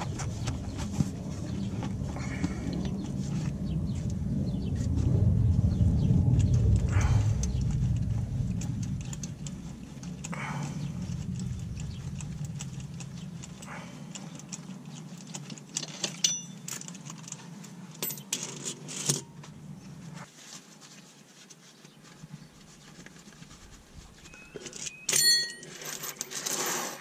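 Metal hand tools and bolts clinking with a light metallic ring, scattered through the second half, with the loudest clatter near the end. A low rumble fills the first half.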